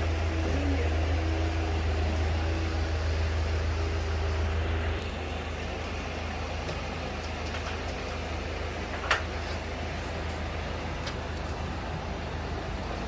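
Aerial lift truck's engine running with a steady low hum, which drops in level about five seconds in. A single sharp click comes near the end.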